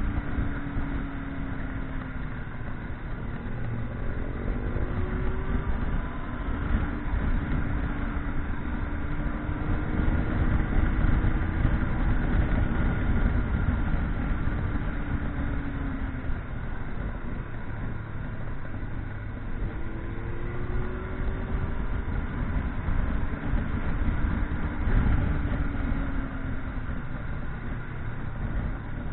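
Motorcycle engine running on the move, its pitch rising and falling several times as it speeds up and slows, over a steady rumble of wind and road noise.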